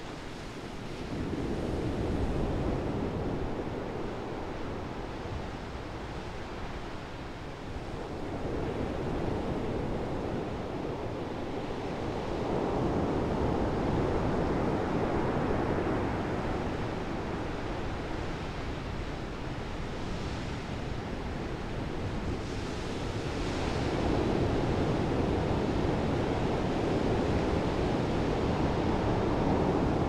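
Pacific Ocean surf breaking on a beach and against a rocky point, a steady wash of white water that swells and ebbs in several long surges.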